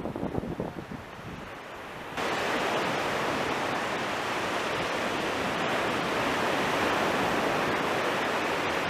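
Sea surf washing on the beach, mixed with wind buffeting the microphone. About two seconds in, the sound jumps abruptly to a louder, steady, even rush.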